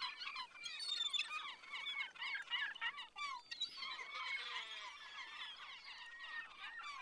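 A flock of seabirds calling, many short chirping and squawking calls overlapping in a constant chatter.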